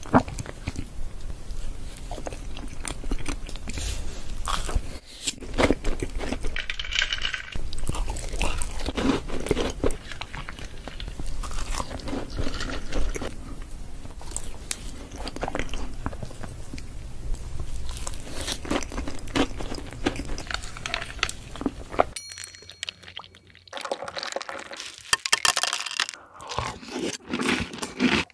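Close-miked chewing and crunching of a soft chocolate chip cookie filled with chocolate spread, with many short crackly bites and chews. Near the end the sound changes to another eater biting and chewing chocolate desserts.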